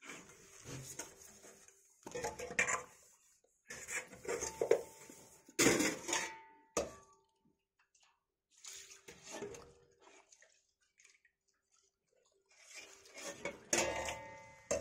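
Steel pots and bowls clanking and scraping on a concrete floor in a string of irregular bursts, some leaving a brief metallic ring.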